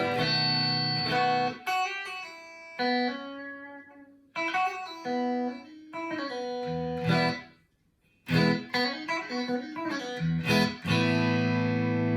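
Clean electric guitar, a Fender Stratocaster through a 1980 Fender Pro Reverb amp, played through an OTA-style compressor pedal with its pre-gain turned all the way down. It plays a run of plucked single notes and chords, with a brief break about eight seconds in, and ends on a ringing chord.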